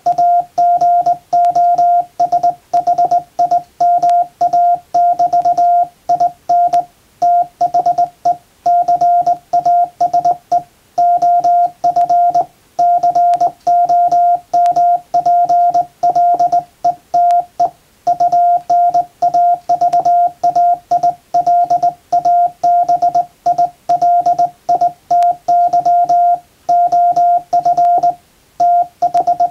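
Hand-sent Morse code from a JRC KY-3A straight key: a single steady tone from the radio, keyed on and off in quick dots and dashes with short pauses between characters and words, spelling out a plain-language English telegram.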